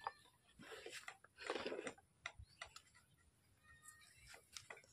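Faint, irregular clicks and taps of plastic containers and a small steel bowl being handled, with a short rustle about a second and a half in.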